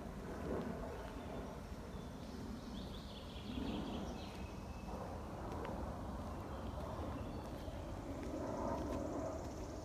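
Footsteps walking along a forest path, an uneven crunching step about every second, with birds chirping around three seconds in and a fast bird trill near the end.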